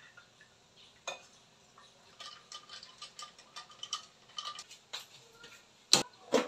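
A metal spoon stirring a drink in a drinking glass, clinking lightly against the glass several times a second. Near the end come two loud metal clanks from a toaster oven door and its baking tray being handled.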